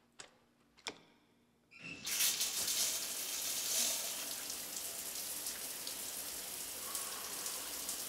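A few faint clicks, then a steady hiss that starts abruptly about two seconds in.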